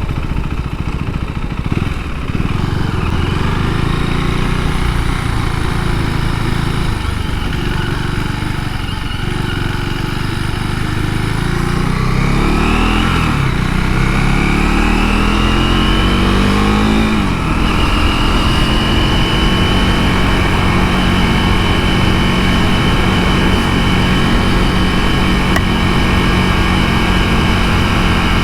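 KTM 390 Duke's single-cylinder engine heard from the rider's position: steady running, then about halfway through it revs up twice with a gear change between, and then settles into a steady cruise at higher revs.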